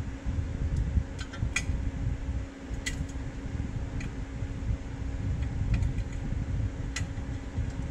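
A few light clicks and taps as a steel skid plate is held and shifted against a Jeep's front differential, over a steady low background hum.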